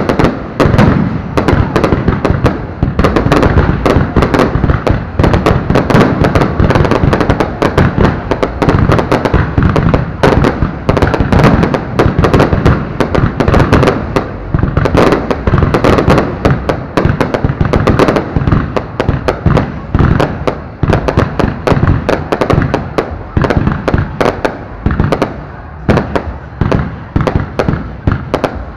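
Aerial fireworks launching and bursting at close range in a dense, unbroken barrage of loud bangs, many a second.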